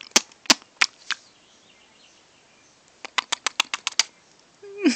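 A baby making sucking sounds with her mouth: sharp smacking clicks, about three a second at first, then after a pause of about two seconds a quicker run of clicks.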